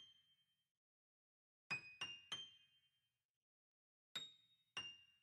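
Soft, sparse music of single high, bell-like notes, each struck and left to ring out and fade: three in quick succession about two seconds in, then two more near the end.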